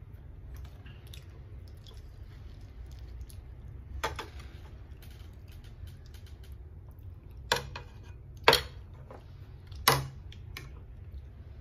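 A person eating fried fish and rice by hand: soft chewing with small mouth ticks, and sharp clicks, one about four seconds in and three louder ones in the last four seconds.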